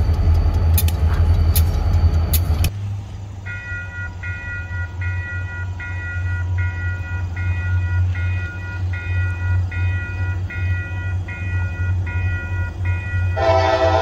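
Diesel freight locomotive running close with sharp clicks, then an abrupt change to a railroad grade-crossing bell ringing about twice a second over a low diesel rumble. Near the end a loud chord starts, which is most likely the train horn.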